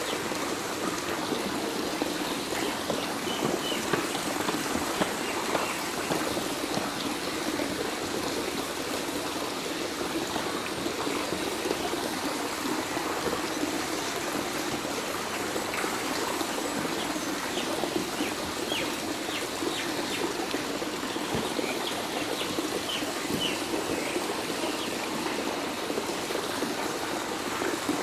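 Steady trickling and splashing of water in a pond crowded with swimming turtles, with no break or change in level.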